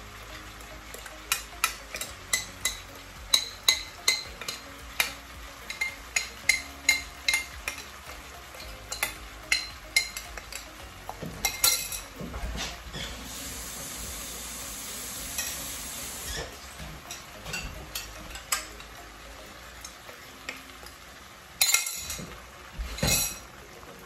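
A metal spoon clicks and scrapes against a small bowl, several times a second, as seasoning sauce is emptied into a skillet of frying shrimp. The pan sizzles underneath, with a louder hiss for a few seconds around the middle, and there are two knocks near the end.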